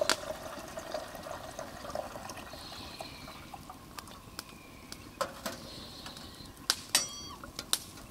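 Water pouring from a kettle into a stainless steel camp percolator pot for about the first two seconds, then a few sharp metal clinks near the end, one of them ringing briefly, as the kettle is set down and the percolator's parts are fitted into the pot.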